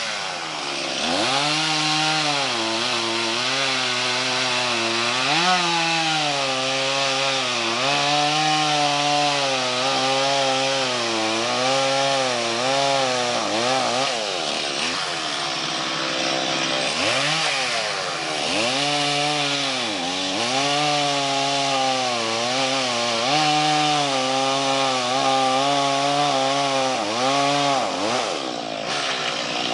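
Chainsaw cutting into a tree, its engine pitch sagging as the chain loads up in the wood and rising again as it revs, many times over. It eases off to a lower, quieter run for a couple of seconds around the middle.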